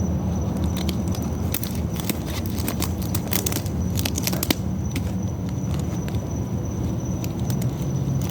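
Rubber bands being stretched and snapped onto a watermelon: a run of sharp clicks and snaps in the middle, over a steady low rumble.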